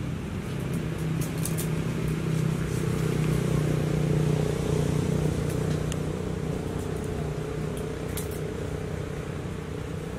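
A motor vehicle's engine running steadily, growing louder towards the middle and then easing off, as of a vehicle passing. A few faint sharp clicks sound over it.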